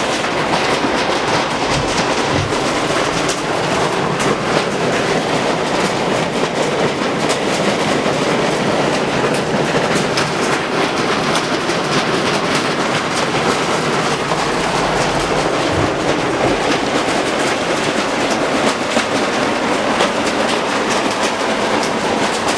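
Heavy rain pouring down in a loud, steady rush, with many sharp ticks of impacts throughout.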